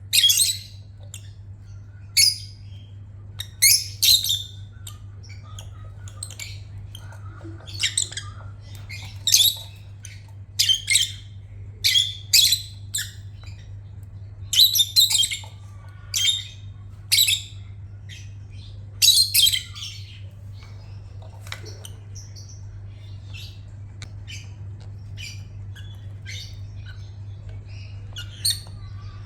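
Pet lovebird calls: short, shrill, high-pitched squawks repeated at irregular intervals, loud and frequent for the first twenty seconds, then softer chirps. A steady low hum runs underneath.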